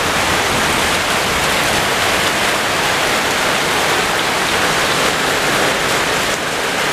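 Heavy rain falling on a flooded driveway: a steady, dense hiss of drops splashing into standing water.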